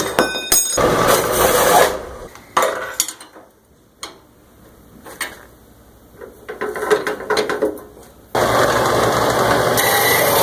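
Metal-cutting bandsaw cutting steel rebar. It is loud for about the first two seconds and again steadily from about eight seconds in, with quieter stretches and scattered knocks between.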